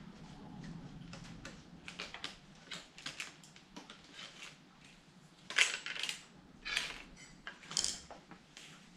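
Small clicks and scrapes of a screwdriver working the screws of a child's bike's plastic chain guard, with three sharper clatters of tools and parts being handled and set down, about five and a half, six and a half and eight seconds in.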